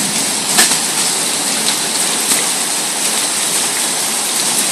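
Heavy rain falling steadily in a storm, an even hiss with a few sharp ticks of something striking.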